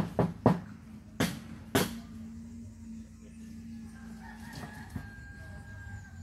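A rooster crowing, one long drawn-out call in the second half. A few sharp thumps come in the first two seconds.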